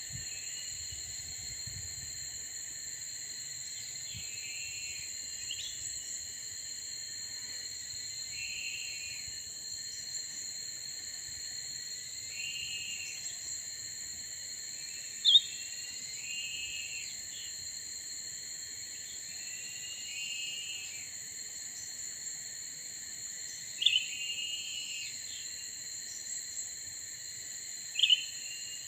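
Cucak ranting bird calling: a short chattering phrase repeated every three to four seconds over a steady high insect drone, with three louder sharp notes about halfway through and twice near the end.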